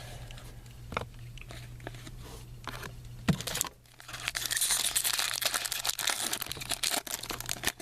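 A trading card pack wrapper being handled, then torn open and crinkled, with the crinkling growing dense from about four seconds in; a few light clicks of card handling before it.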